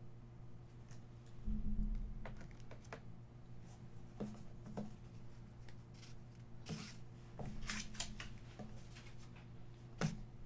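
Handling noise from trading cards and clear plastic card holders being moved on a table: scattered light clicks, scrapes and rustles, with a soft thump about a second and a half in as something is set down.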